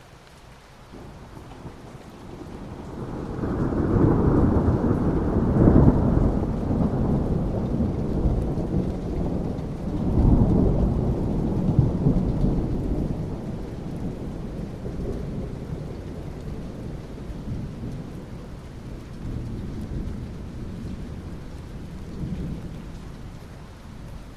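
Rolling thunder over steady rainfall: a low rumble builds a few seconds in, swells again about ten seconds in, then slowly dies away while the rain keeps falling.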